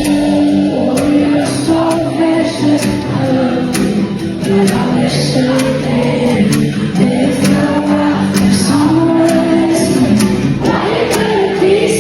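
Pop song with singing in layered vocal harmonies; the drums and deep bass drop out, leaving a lighter, sustained vocal passage.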